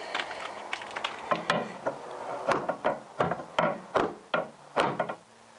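Wooden hammer handle knocking on a plastic coolant header tank, driving the tight-fitting tank down onto its mounting tabs: about a dozen sharp, uneven knocks.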